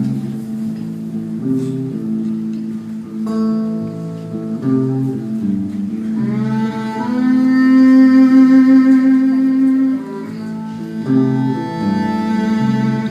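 Live band music without vocals: a picked guitar accompaniment under a sustained melody line. About six seconds in, the melody holds one long, loud note with a slight vibrato for around four seconds, then the notes move on again.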